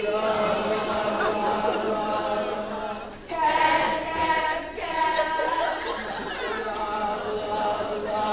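A roomful of people singing together without accompaniment, in held, sung phrases. There is a short break about three seconds in, and then the next phrase comes in louder.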